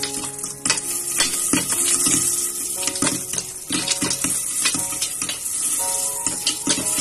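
Popcorn kernels popping inside a covered metal pot on a gas stove: a rapid, irregular patter of sharp pops against the lid over a steady hiss of hot oil.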